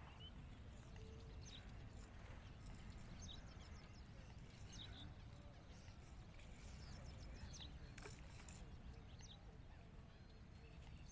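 Near silence: quiet outdoor ambience with a steady low rumble and scattered faint, short high chirps from birds.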